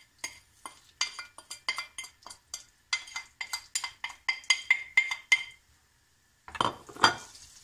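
A wooden spoon tapping and scraping against a ceramic plate to knock sugar off into a pan: a fast run of ringing clinks, roughly four a second, stopping about five and a half seconds in. About a second later comes a shorter, louder scraping noise.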